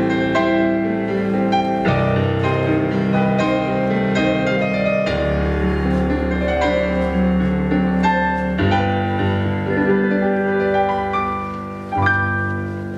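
Recorded solo piano music for ballet class, with chords changing every second or two, dying away near the end as the phrase finishes.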